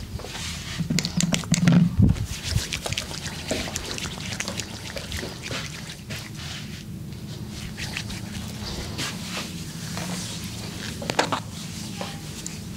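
Hands-on massage sounds: hands rubbing, pressing and tapping on skin and clothing, with many small clicks and rustles. The loudest moment is between one and two seconds in, where a brief low vocal sound is heard, and there is another cluster of sharp clicks about eleven seconds in.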